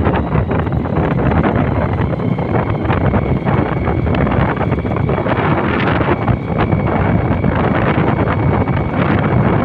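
Wind buffeting the microphone on the move: a loud, steady rumble with a faint, steady high whine above it.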